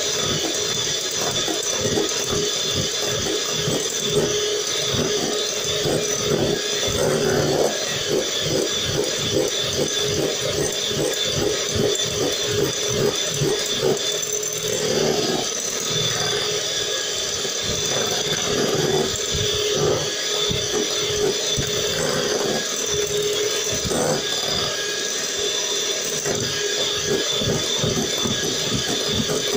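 Electric hand mixer running steadily, its beaters rattling and knocking against the sides of a glass mixing bowl as they whip a frothy mixture.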